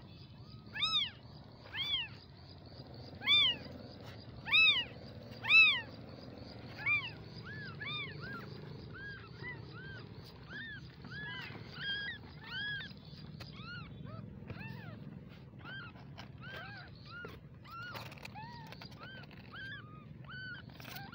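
Baby kittens mewing: short high-pitched cries that rise and fall, loud about once a second for the first six seconds, then fainter, quicker mews at varying pitch, several overlapping.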